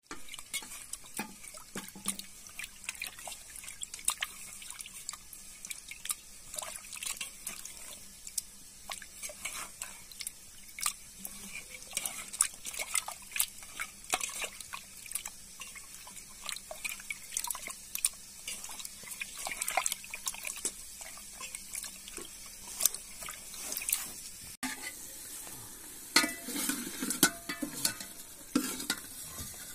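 Raw beef being washed by hand in water in an aluminium pot: water sloshing and splashing, with irregular clicks of meat and hand against the metal. About 25 seconds in, the sound cuts to louder clinks and scraping of a metal pot.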